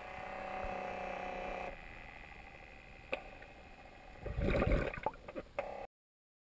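Small electric propeller motors of a homemade ROV running with a steady whine, stopping about a second and a half in. About four seconds in comes a loud rumbling burst of noise with a few clicks, and the sound cuts off suddenly near the end.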